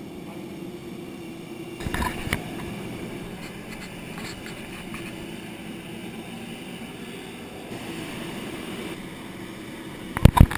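Steady mechanical hum of ramp machinery running beside a parked Airbus A320. There are a couple of knocks about two seconds in and a cluster of loud knocks near the end, as on metal boarding stairs.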